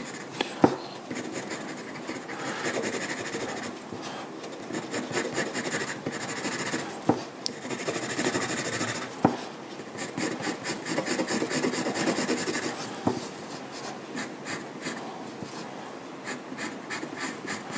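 3B graphite pencil hatching on drawing paper: rapid scratchy strokes that come and go in short runs, with a few sharper ticks.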